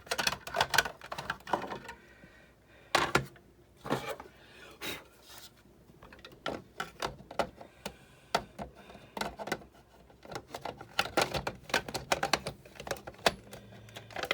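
Clicks, taps and small knocks of plastic and metal parts being handled and fitted together on a disassembled Big Shot die-cutting machine, coming in clusters and growing denser after the middle.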